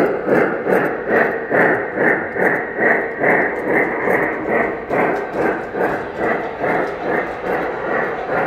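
Metal model steam locomotive's onboard sound system playing steam-engine chuffing as the locomotive runs along the track, an even rhythm of about two to three chuffs a second.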